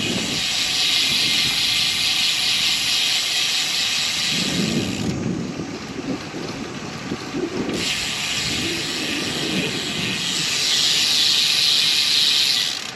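Riding noise from a road bicycle under way: a steady high hiss that cuts out abruptly about five seconds in and comes back a few seconds later, with lower rumbling in the middle.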